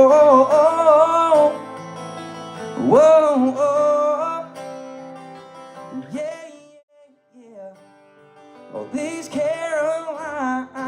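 Country song with acoustic guitar and long, wavering sung notes. The music falls almost away about seven seconds in and comes back about two seconds later.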